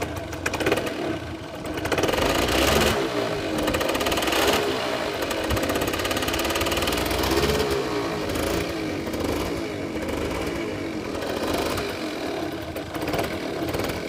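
49cc two-stroke moped engine running just after a cold start, revved up and down with the pitch rising and falling. It gets louder about two seconds in.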